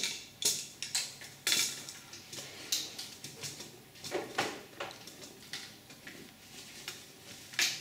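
Metal tools and engine parts clinking and clicking at irregular intervals during hand assembly of a small UAV engine on a workbench.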